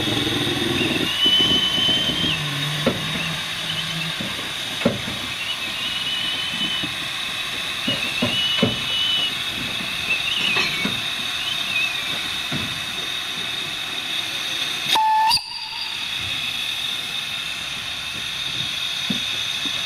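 Narrow-gauge steam locomotive hissing steam steadily while shunting, with a few short high-pitched tones in the first half and scattered knocks. About fifteen seconds in, a brief loud tone ends abruptly.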